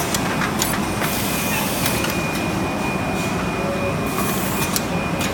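HM-ZD350K rigid box machine running: a steady mechanical hum with a thin high whine and a few sharp clicks from its moving parts.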